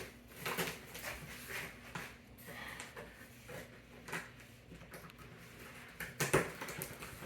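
A large cardboard shipping box being opened and handled: irregular rustling and scraping of cardboard, with a sharper knock about six seconds in.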